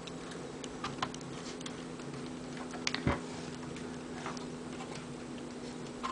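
Scattered small clicks and taps of the Corsair Dominator Airflow fan unit's brackets being handled and hooked onto the memory modules' retention tabs, the loudest about three seconds in, over a low steady hum.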